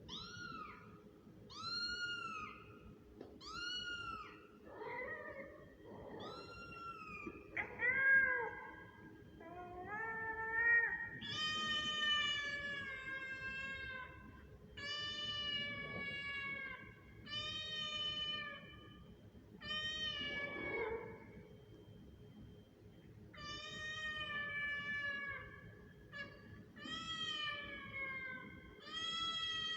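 A kitten meowing over and over, about one call every second or two. The first cries are short and rise and fall in pitch; from about ten seconds in they become longer, drawn-out cries.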